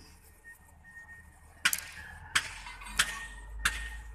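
Sharp clicks repeating at an even pace, about three every two seconds, starting a little under two seconds in, over a faint steady low hum.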